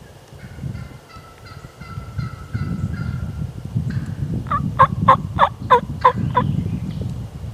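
Wild turkey hen yelping: a softer run of about nine evenly spaced yelps, then six loud, sharp yelps, each dropping in pitch.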